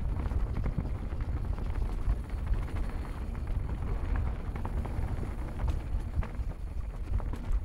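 Mountain bike rolling downhill on a dirt singletrack: steady wind noise on the microphone with tyre noise, and scattered rattles and clicks from the bike over the bumps.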